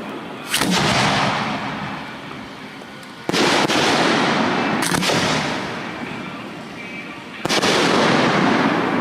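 Professional display fireworks going off: four sharp booms a couple of seconds apart, each trailing into a long rolling echo that fades away.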